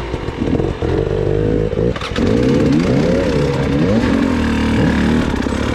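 Off-road motorcycle engine revving up and down over and over as the bike is ridden, its pitch rising and falling every second or so, with one short sharp knock about two seconds in.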